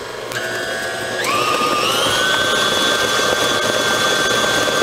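KitchenAid stand mixer running, its beater working a thick batter; about a second in the motor whine rises in pitch as it speeds up, then holds steady.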